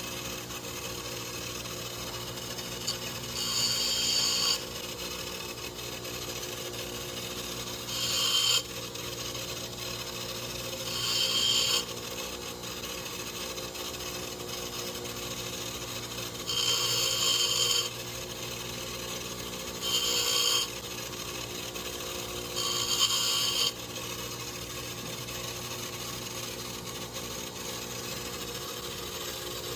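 A power tool running steadily, with six short grinding passes of a second or so as it is pressed against the steel hammer of a 1911 pistol, rounding off its profile (bobbing the hammer).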